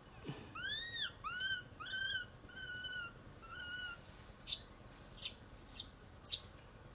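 Animal calls: five short whistled calls, the first ones arching up and down, in a steady series, followed by four sharp, very high chirps about half a second apart.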